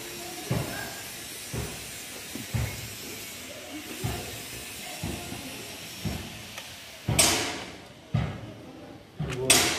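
Spanner work on a bolt of a stripped-down Maruti Gypsy engine: a string of metal clicks and knocks about once a second, then two louder, harsh scraping noises, one about seven seconds in and one near the end.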